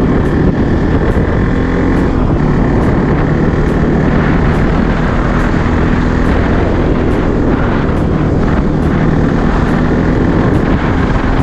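Bajaj Pulsar NS200's single-cylinder engine running at a steady highway cruise, under heavy wind rush on the microphone.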